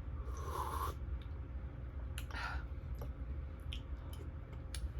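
Close-miked eating sounds: chewing with wet mouth noises and scattered small clicks.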